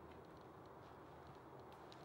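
Near silence: quiet forest ambience with a few faint, short ticks.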